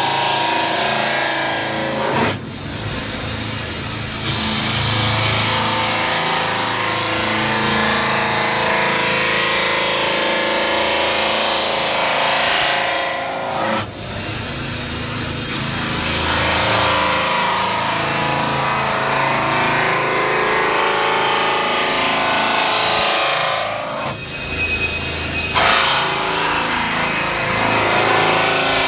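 CNC metal spinning machine forming a metal workpiece, its roller pressed against the spinning part: a loud, steady hissing scrape over the machine's running drive. The sound drops out briefly three times, about every eleven seconds.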